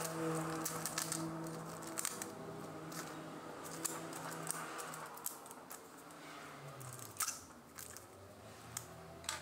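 Thin plastic bag being cut and pulled away from around a glued, clamped wooden joint, crinkling in a string of small crackles and snips. A faint low steady hum underneath fades out partway through.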